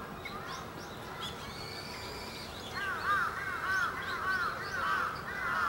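Birds calling: scattered high chirps, then from about halfway in a quick run of short repeated calls, several a second.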